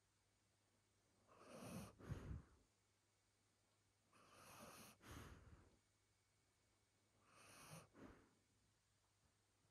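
Large dog breathing slowly and deeply in its sleep, close up: three soft breaths about three seconds apart, each a drawn-in breath followed by a breath out.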